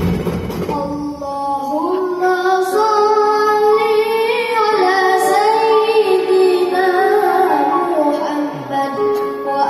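A child's solo voice singing a melody with a live orchestra accompanying, the voice coming in about a second in.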